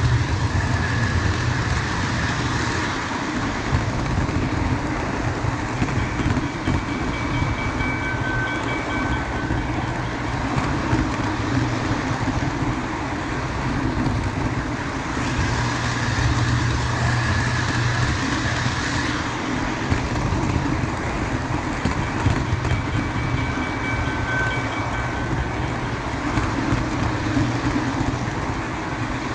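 O gauge model train rolling along the track, heard from a camera riding on one of its cars: a steady rumble of wheels and motor with clickety-clack over the rail joints. Short high-pitched tones come and go twice, about fifteen seconds apart.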